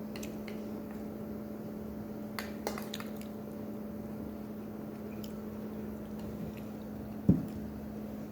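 Quiet eating at the table: soft mouth sounds and a few faint clicks, with one low thump about seven seconds in, over a steady low hum.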